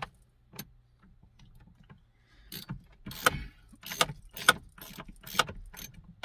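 A run of sharp clicks and knocks, about two a second, starting a couple of seconds in, from hand tools and parts being worked on a steering column.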